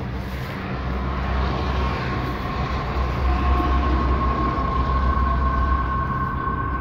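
Traffic going by on the highway: a steady low rumble with a tyre-like whine that grows stronger in the second half.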